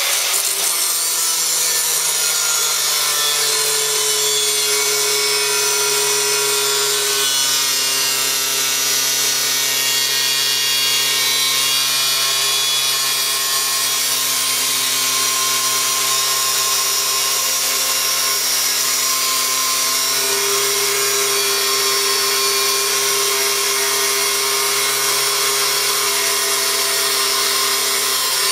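A four-inch (100 mm) angle grinder with an abrasive cutting disc cutting through 3 mm steel plate. Its steady motor whine runs under a harsh hiss from the disc grinding the steel, and the pitch shifts a little as the cut goes on. Awfully noisy: a racket.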